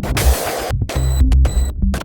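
Electronic music with a heavy bass, cut by abrupt stop-start breaks about twice.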